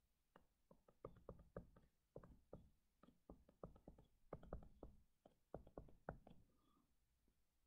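Faint, irregular taps and clicks of a stylus pen on a tablet screen as a formula is handwritten, several strokes a second, stopping near the end.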